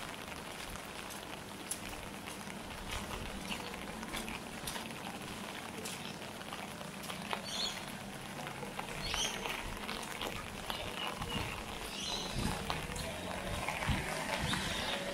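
Light rain pattering and dripping, with a few short high bird chirps midway. A low rumble builds near the end.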